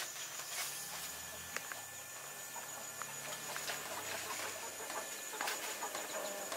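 Background ambience: faint bird calls over a steady high-pitched whine, with a few light ticks and a low hum during the first few seconds.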